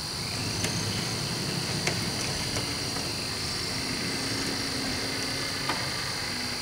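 Model diesel locomotive's onboard sound decoder playing diesel engine sound through its small speaker as the locomotive moves. The engine sound swells in at the start, with four sharp clicks spread through it.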